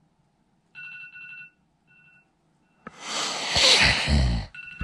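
A phone ringtone sounding in short electronic pulses, with a brief repeat a second later. Then a loud rushing noise lasting about a second and a half, ending in a low rumble.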